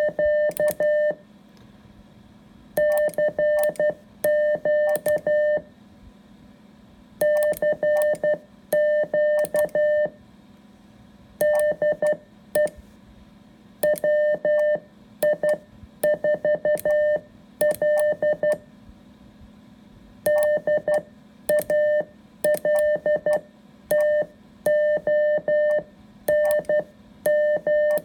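Morse code sent on an iambic keyer with Bencher paddles: a steady mid-pitched beep keyed on and off in fast dits and dahs, in bursts of characters with short pauses between words. Each element starts and ends with a sharp click.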